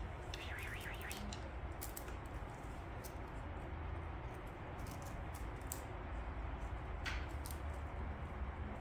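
Steady low room hum with scattered faint clicks and rustles as a cat bats at a dangling wand toy, a few about half a second in and a couple near the end.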